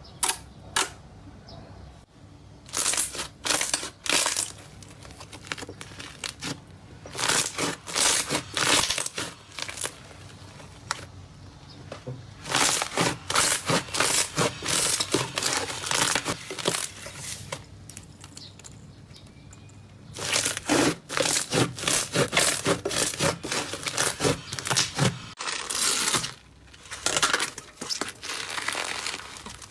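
Slime being squeezed and worked by hand: bursts of rapid clicking and crackling pops lasting a few seconds each, with short quieter pauses between.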